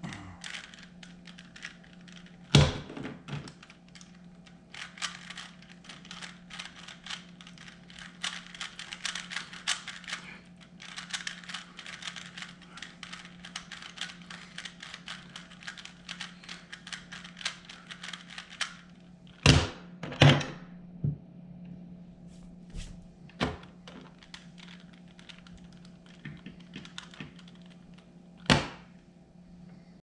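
Plastic 3x3 Rubik's cube being turned fast by hand: rapid clicking and clacking of the layers, densest through the middle and thinning out a little past halfway. A few loud knocks stand out, two close together just as the turning stops.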